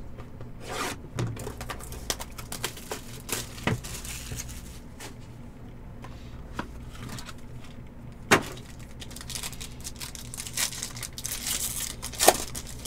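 Crinkling and tearing of trading-card box and pack packaging, with scattered light clicks and taps as cards are handled on a table. Two sharper knocks stand out, one a little past the middle and a louder one near the end.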